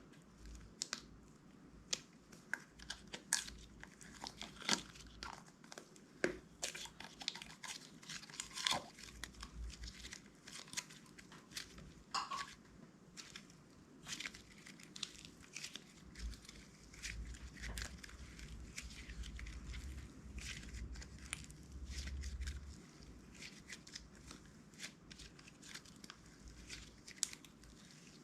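Hands kneading and stretching clear slime, giving irregular sticky pops and crackles, with a low rumble of handling partway through.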